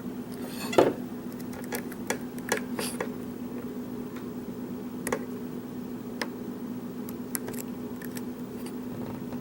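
Lock pick ticking and clicking against the pin stack of a Schlage pin-tumbler lock under tension, irregular single clicks a second or so apart while a high-set pin is being worked, over a steady low hum.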